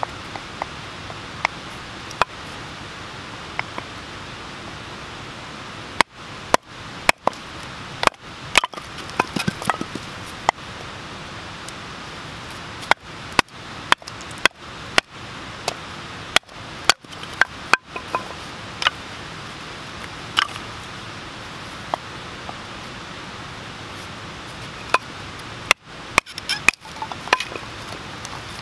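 Knife batoning: a wooden baton knocking on the spine of a knife driven into small sticks on a wooden chopping block, splitting them into stove-sized pieces. Sharp knocks come in quick runs of several strikes, with pauses between runs, over a steady hiss.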